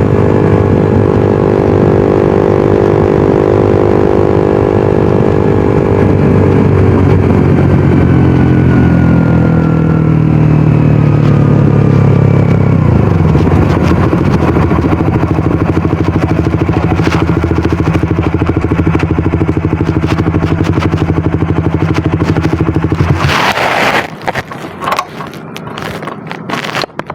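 Suzuki GSX-R150's single-cylinder engine and exhaust dropping in revs as the bike slows, settling to a steady idle, then switched off suddenly near the end, followed by a few clattering knocks.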